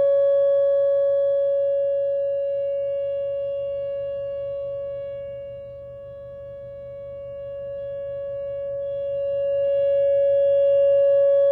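Outdoor tornado warning siren sounding a steady, unchanging tone as the drill's three-minute alert signal. Its loudness fades to a low about halfway through and swells back, as the rotating siren turns away and then back toward the listener.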